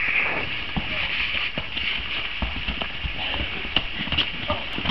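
Hooves of a horse wearing float boots clopping on asphalt in irregular, uneven steps, the sound of a mare unsettled by boots she isn't used to.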